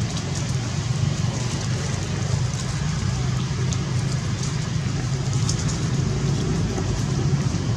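Steady low rumble under an even hiss, with a few faint high ticks.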